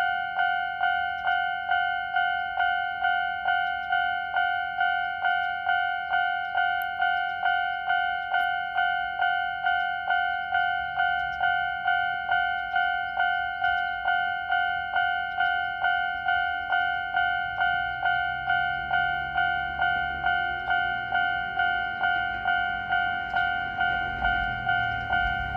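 Old-type electronic warning bell of a Jōmō Electric Railway level crossing, a high-pitched ding repeating about twice a second. A low rumble builds in the second half as a train approaches.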